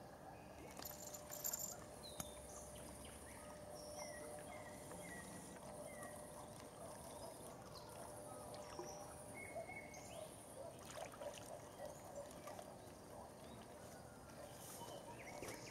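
Quiet pondside ambience: a faint even background with scattered short, high bird chirps, and a faint steady hum through the first part.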